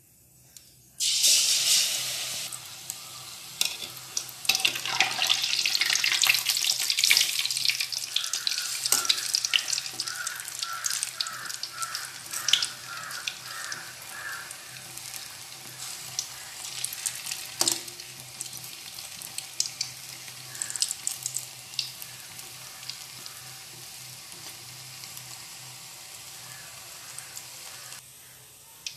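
Batter-coated chicken balls deep-frying in hot oil. A sudden loud sizzle about a second in as the first go into the oil, then a second swell of hissing a few seconds later, full of crackling pops. The sizzle slowly dies down as they cook and drops further near the end.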